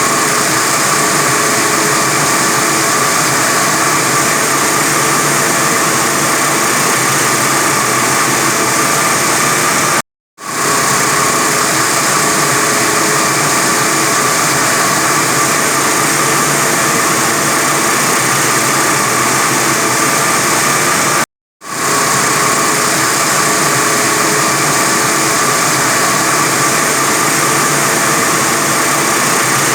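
45 kW diamond wire saw running steadily while cutting reinforced concrete: a constant machine drone with a steady whine and a strong hiss. The sound cuts out completely for a moment twice, about ten and about twenty-one seconds in.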